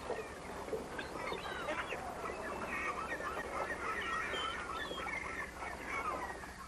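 A flock of gulls calling, many short overlapping cries.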